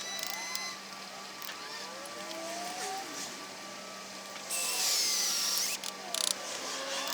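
Electric drill boring into the set plaster-and-sand lining of a paint-bucket furnace, its pitch sliding up and down as it cuts. About four and a half seconds in comes a louder, harsher stretch of about a second with a falling whine.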